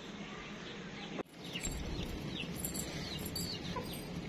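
Small birds chirping in short, quick downward-sliding calls over a steady outdoor background hiss; the sound breaks off about a second in and comes back louder, with more chirps.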